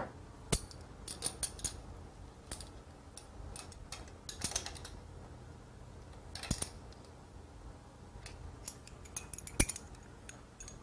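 Scattered light metallic clicks and clinks of small metal parts and tools being handled, spread unevenly, with a few short rustles.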